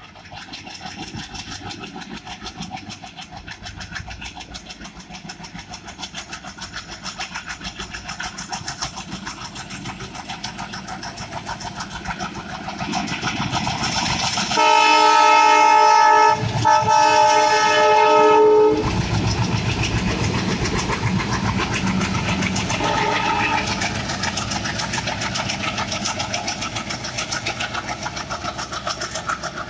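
Two coupled ALCO diesel locomotives hauling an express train at speed, their engine and wheel noise growing steadily louder as they approach. About halfway through, the locomotive horn sounds a long blast of about four seconds, broken briefly in the middle, the loudest sound here. Afterwards the coaches run past with a steady, rapid clatter of wheels over the rail joints.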